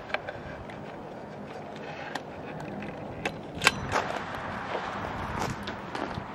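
Camping gear being handled and set down: a handful of separate sharp clicks and knocks, the loudest about three and a half seconds in.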